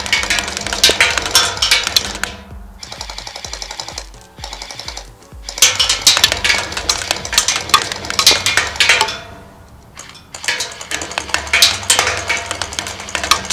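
Background music with a steady drum beat, dropping away briefly twice.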